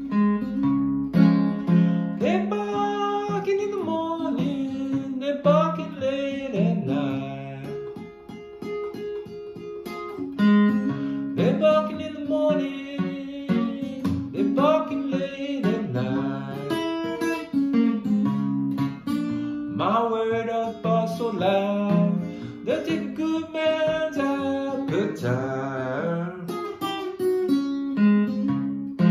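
Solo acoustic guitar picking a country blues, with a man's voice singing over it in stretches.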